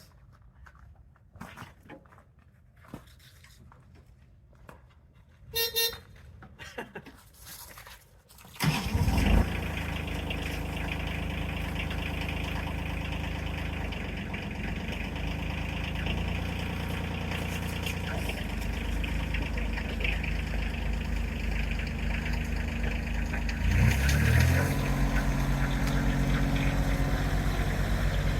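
Quiet with light clicks and a brief tone, then a tractor engine starts about nine seconds in and runs steadily. Near the end it revs up and runs louder.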